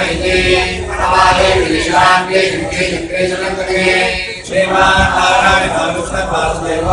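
A large group of men chanting mantras in unison, in phrases with brief pauses between them.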